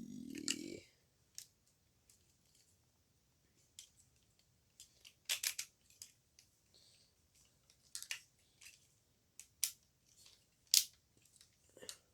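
Scattered short clicks and taps of plastic toy figures being handled and set down, irregular and a few seconds apart, over quiet room tone.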